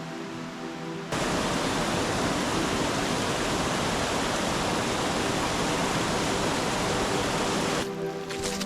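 Creek water rushing over rocks, a steady loud rush that cuts in abruptly about a second in and stops just before the end. Background music with held tones plays before and after it.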